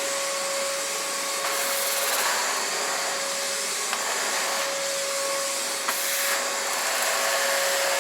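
Milwaukee M18 Fuel 6-gallon cordless wet/dry vacuum running on high while vacuuming the floor: a steady rushing of air with a steady whine. There are a couple of faint clicks.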